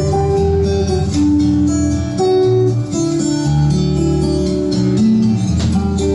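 Recorded music with guitar, played over Yamaha NS-55 loudspeakers driven by a Trio KA-7300D integrated amplifier, picked up in the room.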